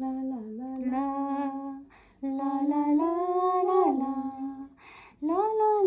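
A woman humming a slow, wordless tune in long held notes that step up and down, in three phrases with two short breaks between them.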